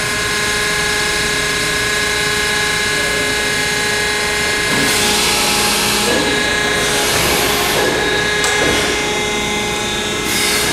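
Thalmann ZR long folder in operation: its hydraulic pump gives a steady whine made of several held tones, and a louder rushing noise joins about halfway through as the folding beam works the sheet-metal part.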